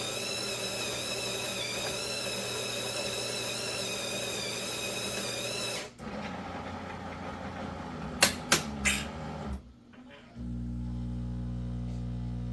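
Terra Kaffe TK-02 super-automatic espresso machine making an espresso. Its built-in grinder whines steadily for about six seconds, then the brew unit shifts with a few sharp clicks. About ten seconds in, the pump starts a steady low buzzing hum.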